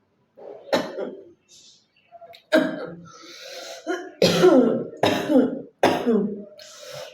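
A woman coughing hard, again and again: about six throaty coughs, the last four coming quickly, under a second apart. The coughs are forced, done on purpose for a coughing challenge.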